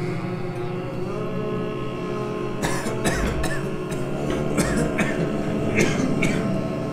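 Throat-singing practice: a low, steady vocal drone with overtones sounding above it. About two and a half seconds in, a run of short, rough throat bursts joins it, around eight in three and a half seconds.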